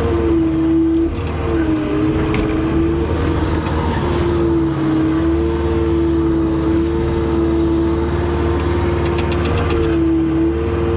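Wheeled excavator running under load: a steady diesel engine with a strong, even whine on top. The whine's pitch dips briefly about a second and a half in and again near the end, as the arm is worked and the machine drives off.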